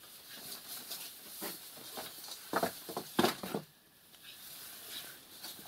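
A fishing seine net being handled and pulled through hands on a floor: steady rustling and scraping with small clicks, and a few louder knocks near the middle.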